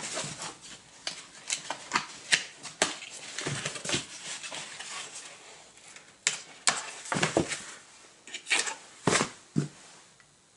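Corrugated cardboard comic book mailer being cut and pried open by hand: an irregular run of sharp clicks, scrapes and crinkles of the cardboard, busiest in the second half and dying away near the end.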